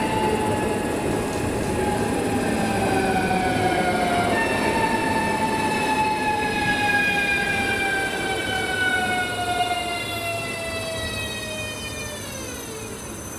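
ES2G Lastochka electric train pulling away from the platform, with its electric drive whining in several tones that slowly slide down in pitch over the rumble of the cars. The sound fades as the train moves off, and near the end the whine sweeps down steeply.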